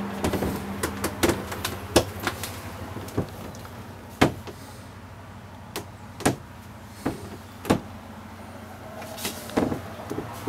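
Scattered, irregular knocks and clicks from someone moving through a boat's cabin with a handheld camera, over a low hum that dies away after about two seconds.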